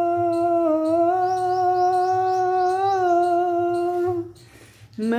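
A man's voice humming one long held note with small rises in pitch, breaking off about four seconds in. After a short pause a lower note begins near the end.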